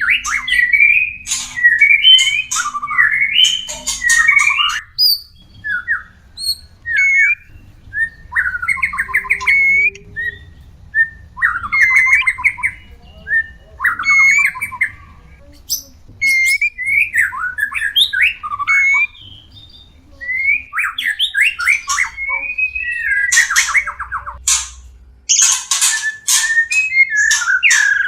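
White-rumped shamas (murai batu) giving breeding-season courtship calls: repeated phrases of quick whistled notes that slide up and down in pitch, broken by short pauses and mixed with harsh chattering notes.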